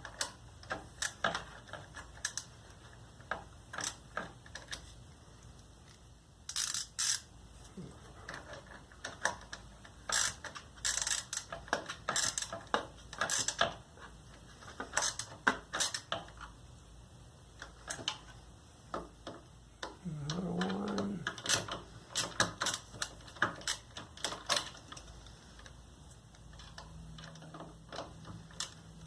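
Quarter-inch socket ratchet clicking in short, irregular runs as a bolt on the scooter's exhaust bracket is tightened, with an occasional clink of the tool against metal.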